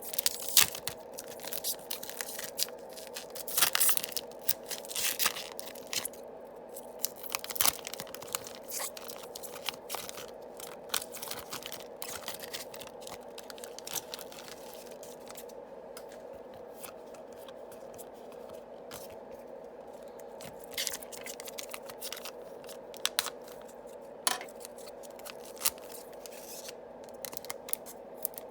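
Foil Yu-Gi-Oh booster pack wrappers being torn open and crinkled, with irregular crackling in scattered clusters, over a steady hum.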